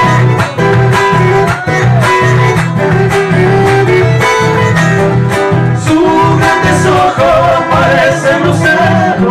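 Live acoustic folk group playing an instrumental passage: two classical-style guitars strummed, with an accordion playing along.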